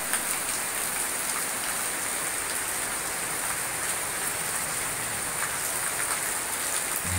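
Steady hiss of rain falling, with a few faint clicks.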